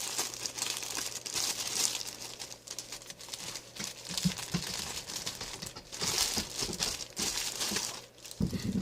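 Packaging and sticky tape crinkling and tearing in irregular bursts as a toy figure is unwrapped by hand.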